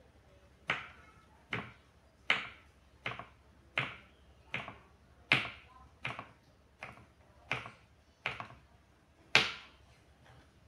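Knife chopping through a block of tempeh onto a wooden cutting board: about a dozen sharp knocks, roughly one every three-quarters of a second, the last one loudest.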